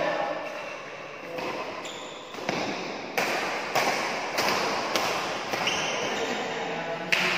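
Badminton rally: rackets striking the shuttlecock in a run of sharp smacks, roughly every half second to a second, echoing in a large hall.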